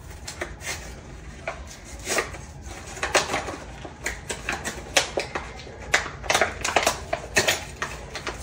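Irregular clicks, clinks and knocks of small hard plumbing parts and tools being handled.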